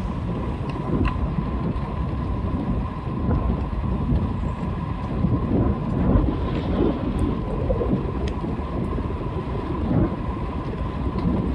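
Wind buffeting a bike-mounted camera's microphone over the road and tyre rumble of a bicycle in motion: a steady, fluctuating low rumble. A faint steady high tone sits above it throughout, with a few light ticks.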